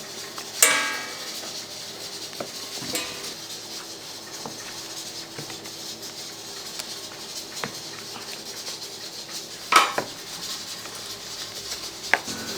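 Metal pans and utensils clanking at a bungeoppang stall: two sharp, ringing metal clanks, about a second in and again near ten seconds, with a smaller clank near the end and light taps between, over a steady faint hum.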